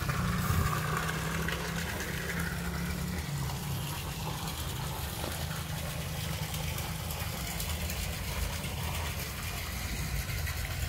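Submersible pump running steadily as it drains the nursery pond down to a 40 cm water level: a low, even motor hum with a wash of moving water.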